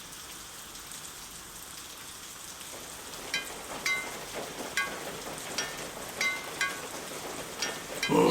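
Cartoon rain: a steady hiss of rainfall, joined about three seconds in by pitched water-drop plinks, a little over one a second. Right at the end a loud voice cuts in.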